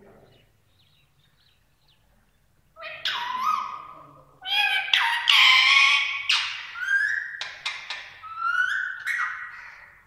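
Female Indian ringneck parakeet calling. After about three quiet seconds comes a run of loud squawks and chirps, some with short rising whistles.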